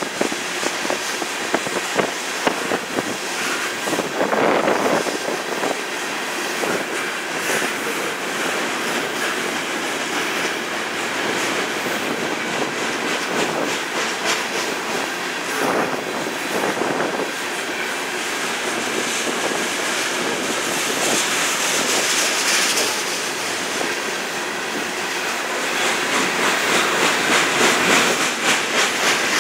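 Union Pacific freight train of three-bay covered hopper cars rolling past, its steel wheels clicking and clattering over the rail joints in a steady stream. The clatter grows louder and more rhythmic near the end.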